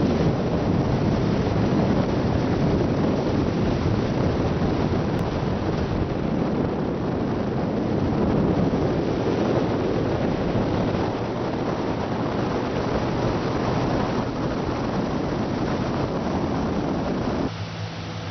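Motorboat under way: the boat's motor running steadily, with wind buffeting the microphone and water rushing past the hull. About seventeen seconds in, this noise cuts off and gives way to a quieter steady hum.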